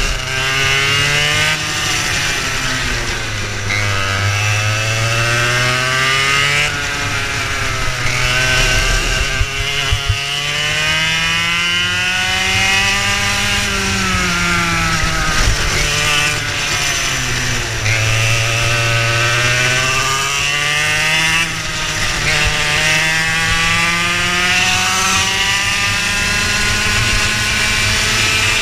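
Racing kart's engine heard onboard at race pace: its pitch climbs steadily along each straight and drops sharply into each corner, several times over.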